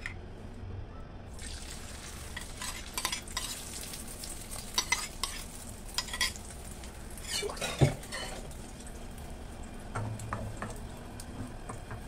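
Beaten egg hitting hot oil in a frying pan and sizzling as a thin omelette sets, the hiss starting about a second and a half in, with scattered crackles and pops. A sharp knock near the middle is the loudest sound.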